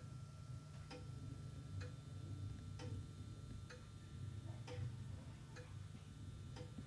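A faint, regular tick, a little faster than once a second, over a low, steady hum.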